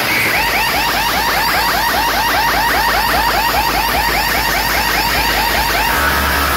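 Electronic siren-style sound effect played very loud through a DJ sound system's speaker stack: rapid repeating chirps, about five a second, over deep bass. Near the end the chirps give way to a steadier tone.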